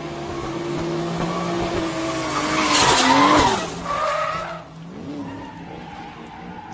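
Drift car sliding sideways at high revs, its engine held at a steady pitch under the hiss of spinning tyres. The sound swells to its loudest about three seconds in, then drops away sharply after about four and a half seconds to a fainter engine note.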